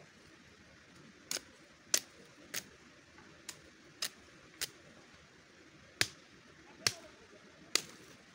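Green conifer branches snapping as they are broken off by hand: nine sharp cracks at uneven intervals, roughly half a second to a second and a half apart.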